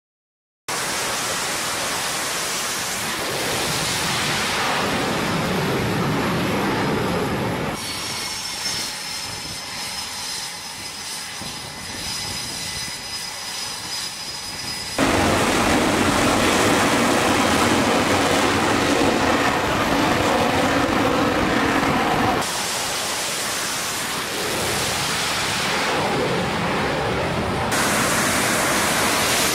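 F/A-18 Super Hornet jet engines running, heard in several cut-together stretches: first a steady rushing noise, then about seven seconds of quieter engine noise with a high, steady turbine whine, then much louder high-power jet noise from about halfway through.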